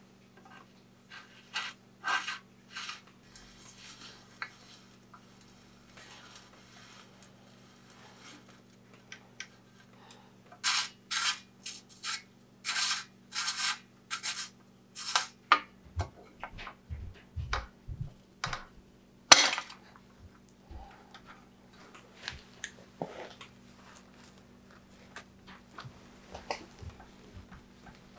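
Small metal parts clicking and scraping against a bicycle frame as they are fitted by hand, with a run of louder clicks in the middle, a few soft knocks, and one sharp click, then quieter rubbing near the end.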